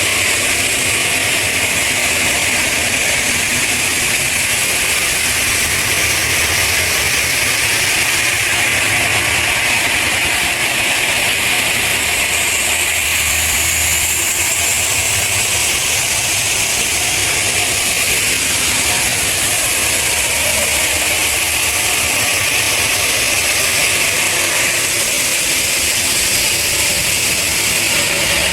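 Steady, loud machinery noise from stone-processing equipment, a constant hiss with a low rumble underneath that holds without a break.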